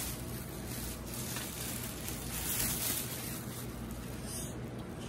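Soft rubbing and rustling of plastic-wrapped stationery packs being handled, over a steady low hum.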